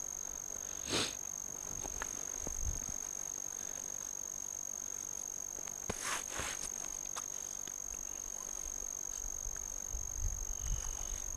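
Steady high-pitched electronic whine over a hiss, the self-noise of a head-mounted action camera, with a few brief rustles of handling, twice in the first half and again with some small clicks near the end as a small box of jigs is handled.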